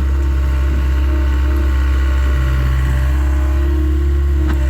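Takeuchi TL26 skid steer's diesel engine running steadily with a constant low hum.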